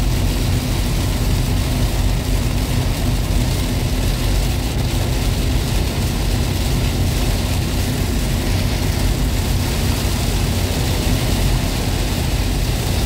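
Heavy rain beating on the roof and windscreen of a Toyota Kijang LGX, heard inside the cabin as a steady hiss over the low drone of the engine and tyres at highway speed on a flooded road.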